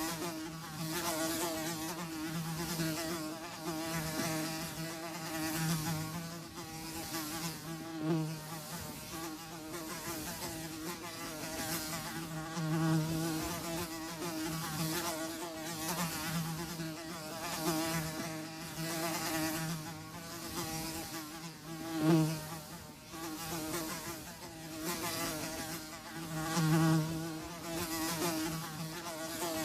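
Flies buzzing, a droning hum that swells and fades over and over as they pass close, with a sharp loud pass about two-thirds of the way through.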